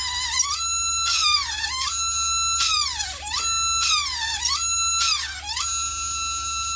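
High-pitched whine of a homemade mini pencil drill's small DC motor. Its pitch drops and recovers about five times as the bit is pushed into a thin strip of measuring tape and loads the motor, then it runs at a steady pitch near the end.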